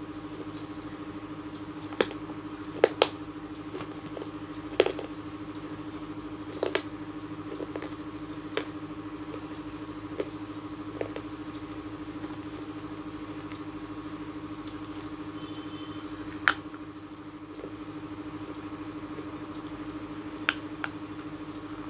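Sharp, scattered cracks and crunches of baked clay pot pieces being snapped by hand and bitten, about a dozen over the stretch, over a steady low hum.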